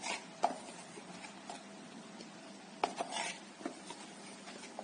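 A spoon adding cocoa powder to dry ingredients in a wire-mesh sieve: a handful of light, short taps and clicks of the spoon against the sieve, spread out with quiet gaps between.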